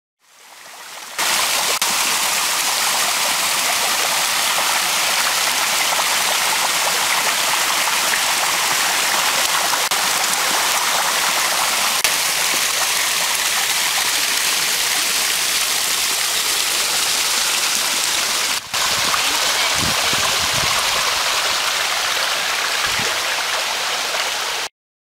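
Small waterfall cascading over rocks into a creek: a loud, steady rush of water. It breaks off briefly a little after halfway, and a few low thuds come near the end.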